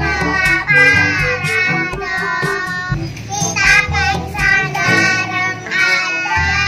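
Young girls singing a song together over backing music.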